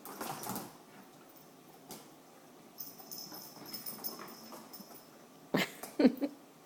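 A puppy playing with a cat toy: light rustling of the toy, a longer stretch of high rustling in the middle, and a couple of louder, sharper sounds near the end.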